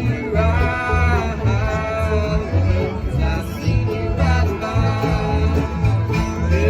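A bluegrass band playing, with plucked strings over a steady, regular bass line.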